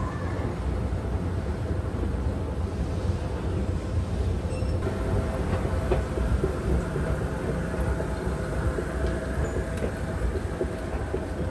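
Escalator running: a steady mechanical rumble with a faint motor hum.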